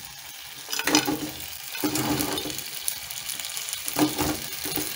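Sauce sizzling and bubbling in a non-stick frying pan as deep-fried chicken pieces slide off a paper towel into it. Louder bursts of sizzle come about a second in, around two seconds and just after four seconds as more pieces land.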